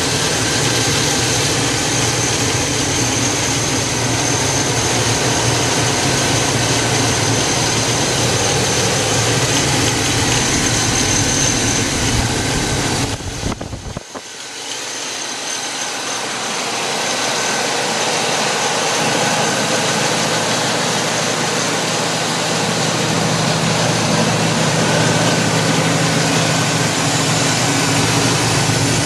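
The freshly rebuilt engine of a 1999 Chevrolet Silverado 1500 idling steadily, heard close up with the hood open. About halfway through the sound dips briefly and the low rumble fades out, then comes back over several seconds.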